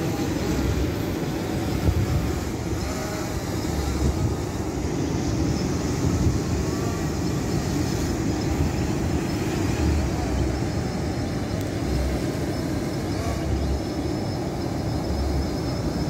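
Wind buffeting the microphone in irregular low gusts over the steady hiss of surf breaking on a beach.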